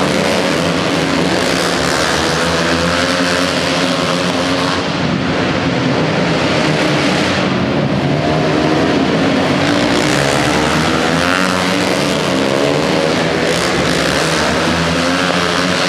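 Flat-track racing motorcycles running hard around the track, several engines at once, their pitch rising and falling as the riders go on and off the throttle through the turns.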